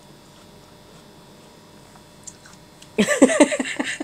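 A woman laughing: a quick run of laughs starting about three seconds in, after a quiet stretch.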